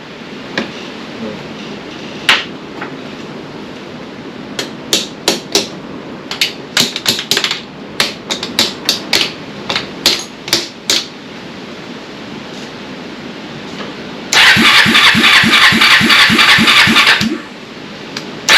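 Kawasaki Lakota ATV's engine being cranked on the electric starter for about three seconds near the end, a loud whirring with about four compression pulses a second, without catching: a no-start that the owner takes for a carburetor problem. Earlier, a run of sharp irregular clicks and knocks.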